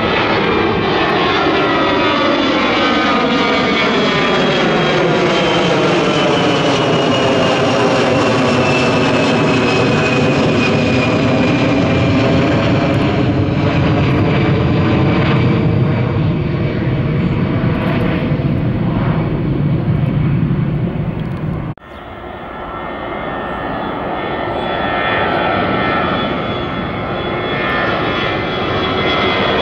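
Jet engines of an Airbus A320-214 airliner (CFM56 turbofans) climbing out after takeoff, the noise sweeping downward in pitch as it passes and draws away. About two-thirds through the sound breaks off abruptly and a second A320 climbing out is heard, growing louder.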